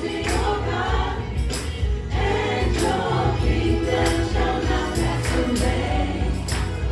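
Choir singing a gospel worship song over a band, with a strong bass line and regular drum and cymbal hits.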